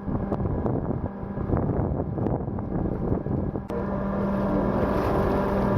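Cargo ship's diesel machinery running steadily, a continuous hum with a fixed low drone and a few light clicks. About two-thirds of the way through the sound shifts and a brighter, steady hiss joins.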